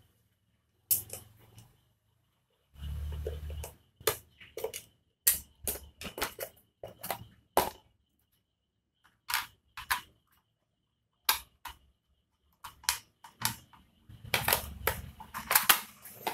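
Irregular sharp plastic clicks and clacks as the plastic housing, lens and bezel of a motorcycle speedometer cluster are handled and pressed together, the clicks coming thickest near the end.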